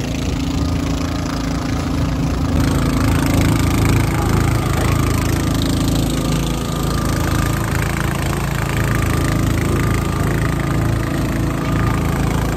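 A passenger boat's motor running steadily while the boat is under way.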